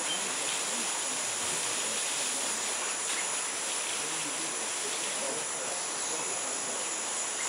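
Spring water pouring steadily from a pipe and splashing into a bucket, under a steady high-pitched insect chorus.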